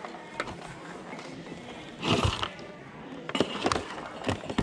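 Small plastic computer speakers and their cables handled and set down among clutter on a table, with a loud knock about two seconds in and several sharp clicks and knocks near the end.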